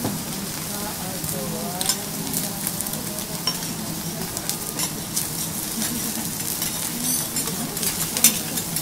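Wagyu steak sizzling on a hot teppanyaki griddle, with repeated sharp clicks and scrapes of metal spatulas against the hotplate; the loudest click comes near the end.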